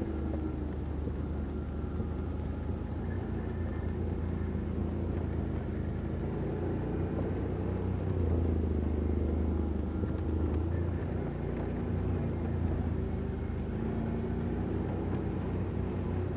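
Quad bike (ATV) engine running under way with a steady low drone. Its pitch shifts slightly as the engine speed changes, and it gets a little louder about eight seconds in.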